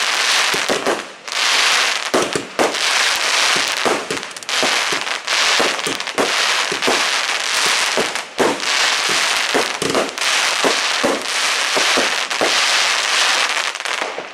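Fireworks and firecrackers going off in a dense, continuous barrage: many sharp bangs close together over a constant crackling hiss.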